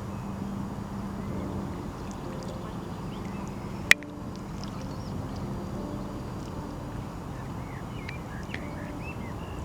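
Quiet background music of low held notes over a steady rushing noise, with one sharp click about four seconds in and a few faint bird chirps near the end.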